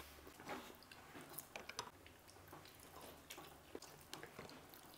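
Faint chewing and eating sounds of a person eating by hand from a plate, with small irregular clicks.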